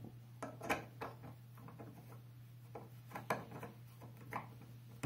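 Metal rod of a microphone desk stand being screwed by hand into its plastic-coated metal base: irregular small clicks and scraping, over a faint steady low hum.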